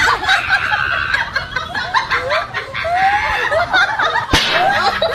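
Laughter and chuckling in short, bobbing bursts.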